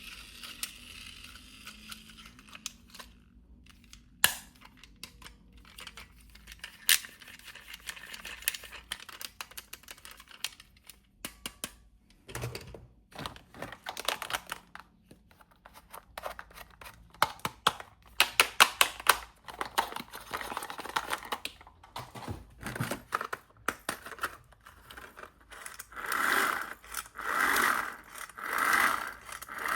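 Toy packaging being handled and opened: plastic and cardboard crinkling and tearing, with many small clicks and taps of plastic toy parts. Near the end comes a run of even rasping strokes, about one a second.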